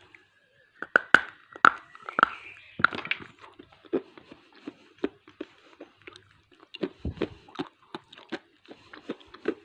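Piece of SS Gold edible clay being bitten and chewed, crunching: a few loud, sharp crunches in the first three seconds, then quicker, softer crunching as it breaks down.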